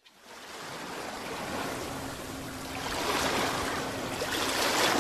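Ocean surf washing in, fading up from silence at the start and swelling about three seconds in and again near the end.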